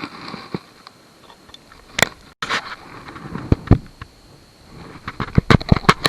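A series of sharp knocks and clicks, single ones at first and a quick run of them near the end.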